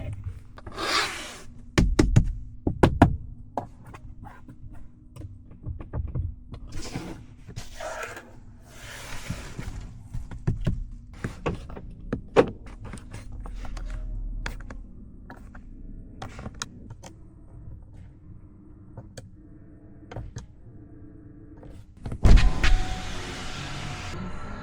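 Clicks and thunks from a BYD Seagull's doors and controls being worked, with several short whirring runs of an electric window motor.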